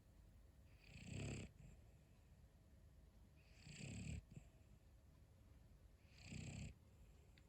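Boston terrier snoring in deep sleep, a human-like snore. Three snores come about two and a half seconds apart, each lasting under a second.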